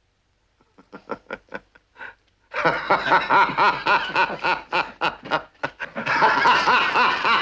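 Laughter: short chuckles start about a second in and turn into loud, sustained laughing from about two and a half seconds.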